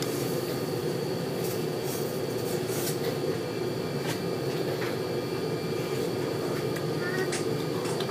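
Steady mechanical hum with faint high whining tones and a few light clicks.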